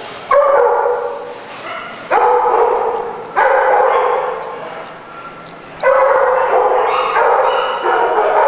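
Dogs in kennel runs barking loudly in repeated outbursts every second or two, each bark ringing on in the hard-walled kennel room.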